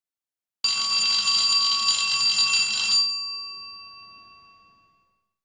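A metal bell rung rapidly in a continuous ring, like an alarm-clock bell, starting about half a second in. It stops after about two and a half seconds and its tones ring on, fading away over the next two seconds.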